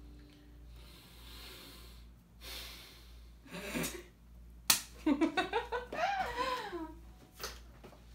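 The last acoustic guitar chord dies away, followed by breathy exhales and a sharp click, then a burst of laughter.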